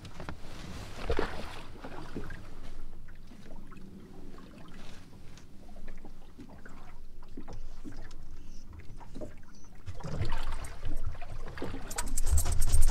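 Small boat drifting on calm water: water sloshing at the hull, with scattered knocks and splashes as a man works over the side. Near the end there is a louder rumble and rustle close to the microphone.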